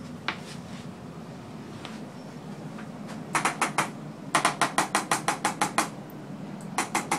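Chiropractic equipment clicking rapidly, about eight sharp clicks a second, in three bursts that begin a little past three seconds in.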